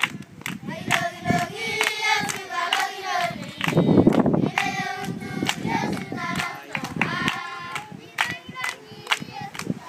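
A group of children singing together while clapping their hands in a steady rhythm.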